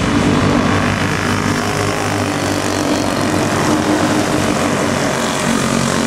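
A pack of racing go-kart engines buzzing together on a dirt track, several overlapping engine notes held fairly steady as the karts race past.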